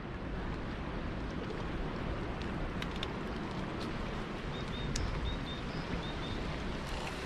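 Steady outdoor rumble of wind and moving floodwater, with a few faint short bird chirps about four to six seconds in and scattered small clicks.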